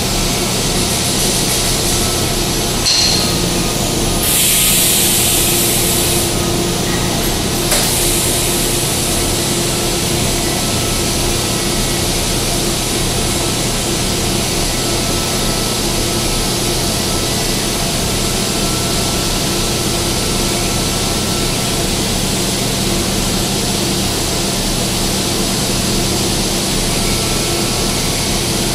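TIG welding on pipe: a steady arc hiss with a faint electrical hum underneath. A louder high hiss comes briefly a few seconds in, and two sharp clicks come near the start.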